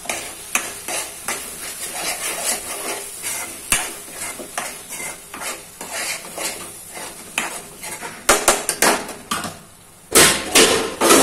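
Steel spoon stirring and scraping a thick masala around a non-stick kadhai, with repeated short clicks against the pan and a light sizzle. Near the end comes a louder run of clattering.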